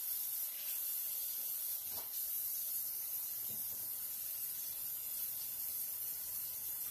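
Steady high-pitched hiss with no speech.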